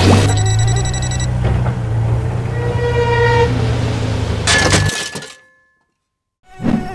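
A drone crashes into the ground with a sharp hit at the start, over the steady running of a New Holland tractor's diesel engine; the engine sound cuts off about five seconds in.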